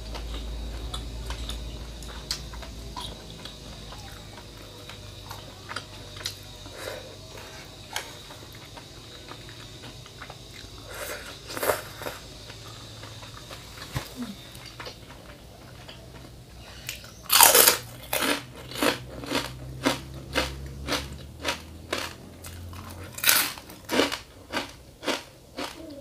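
Close-miked mouth sounds of a person chewing food. Near the end comes a run of loud crunching bites, about two a second.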